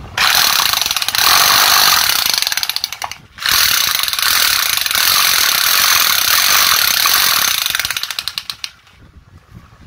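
5 kg electric demolition hammer (breaker) running but not hammering: the motor spins while the locked, jammed bit gets no back-and-forth blows. It runs about three seconds, cuts out for a moment, runs again about five seconds and winds down near the end.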